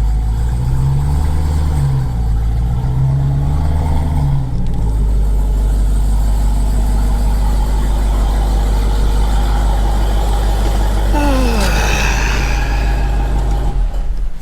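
Supercharged 6.2-litre V8 of a Jeep Grand Cherokee Trackhawk heard from inside the cabin on the move. The revs rise and fall a few times over the first four seconds, then settle into a steady drone. A falling whine comes about eleven seconds in, and the engine sound drops away at the very end.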